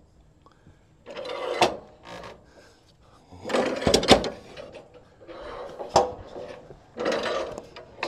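Wooden boards being handled and shifted on the sawmill: a series of scraping, sliding bursts with sharp wooden knocks, about one every second or two, starting about a second in.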